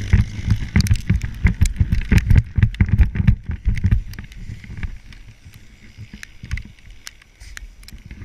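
Footsteps running through snow, heard as a quick series of muffled thumps about three or four a second. The steps ease off after about four seconds into quieter, scattered steps.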